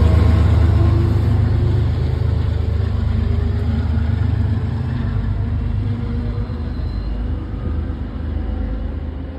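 MBTA HSP46 diesel locomotive pushing a departing commuter train, its engine rumbling under load. The sound fades steadily as the train pulls away.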